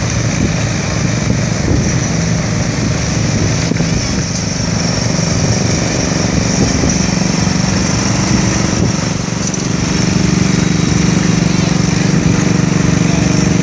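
Tractor engine running steadily, getting louder from about ten seconds in.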